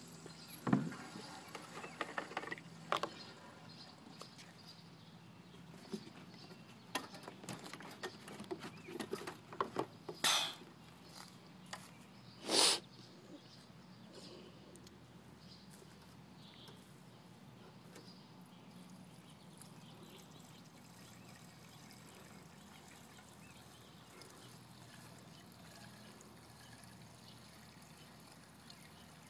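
Gasoline pouring from a gas can's spout into a small engine's fuel tank, a faint steady trickle. Scattered clicks and knocks from handling the can and filler come in the first half, the loudest a little before the middle.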